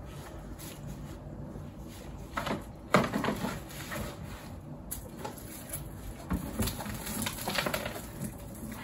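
Rustling and scraping as plants and soil are handled at a plastic bin, in irregular short bursts. A sharp knock about three seconds in is the loudest sound, and a second run of rustling follows from about six seconds in.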